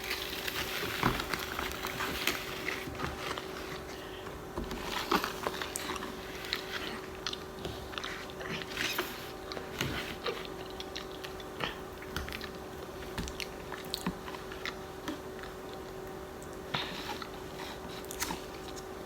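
Close-miked chewing and biting of stuffed clams, irregular wet mouth clicks and small crunches, over a faint steady hum.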